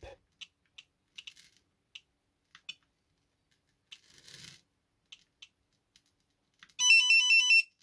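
A hobby LiPo charger's scroll wheel ticking softly as it is turned and pressed through the menu. Near the end comes a short, loud electronic beep sequence from the charger: quick beeps at a few set pitches, its alert when Start brings up a warning to charge without a balancer.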